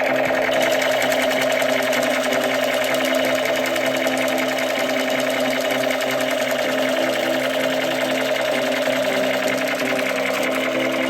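A small motor with gears runs with a steady, fast rattling buzz. It cuts in suddenly at the start, over background music.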